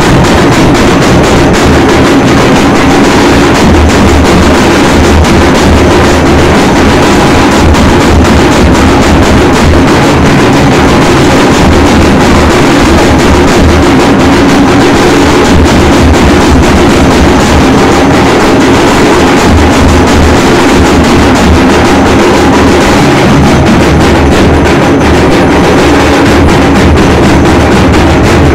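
Loud, continuous drumming and percussion of live temple aarti music, with a heavy low drum beat throughout.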